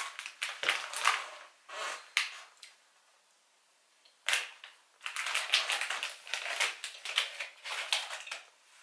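Crinkling and crackling of a Lenny & Larry's Complete Cookie wrapper, foil-lined plastic, being handled and opened, in two spells with a quiet pause of about a second and a half between them.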